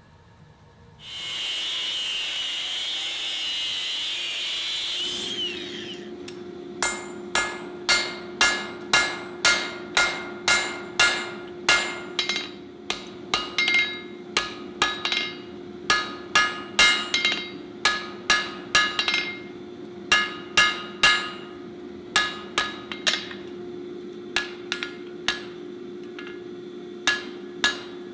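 Blacksmith's hand hammer striking steel on an anvil: sharp ringing blows, roughly two a second, in runs with short pauses, over a steady low hum. Before the hammering starts there are a few seconds of loud hiss.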